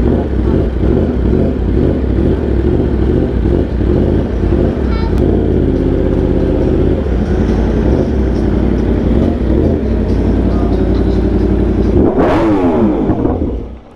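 A 2021 Yamaha R1's crossplane inline-four, fitted with an Austin Racing aftermarket muffler, running loudly at low speed. About twelve seconds in it gives one rev that winds down, and the sound drops away near the end.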